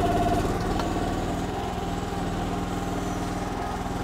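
Gas engine of a 2024 Kymron XH14 mini excavator running steadily under load, driving its Parker hydraulic pump as the bucket digs into dry ground, a little louder in the first second.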